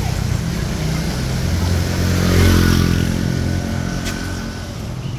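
A motor vehicle driving past on a wet street: its engine and tyre noise swell to a peak about halfway through, then fade away.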